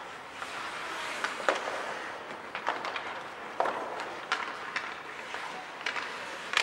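Ice hockey play: skate blades scraping across the ice, with sharp clacks of sticks and puck scattered through.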